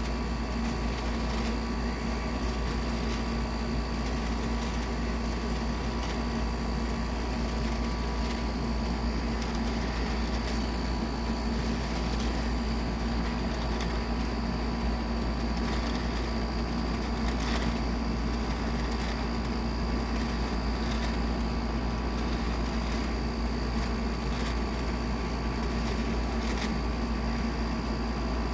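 Air conditioner running: a steady low rumble and hum with a few thin steady tones above it, and scattered light ticks throughout.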